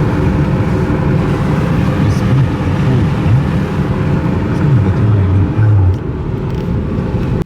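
Car driving: a steady rumble of road and engine noise, with the engine's pitch rising and falling a few times in the middle.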